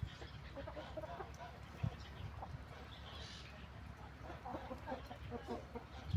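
Chickens clucking in short scattered calls over a steady low rumble, with one dull thump about two seconds in.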